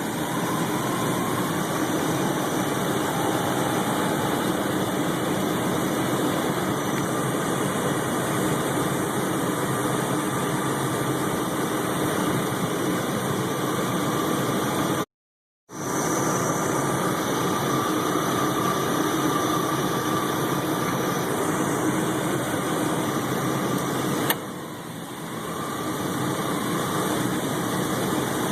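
Chevy Blazer engine idling steadily with a faint whine running over it, the alternator noise under suspicion. The sound drops out completely for about half a second midway. About three-quarters through there is one sharp click, and the engine sound is briefly quieter after it.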